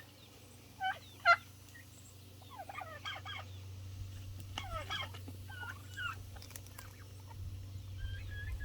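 Young turkeys calling: scattered clusters of short, high calls that slide up and down in pitch, the loudest about a second in, over a low steady hum.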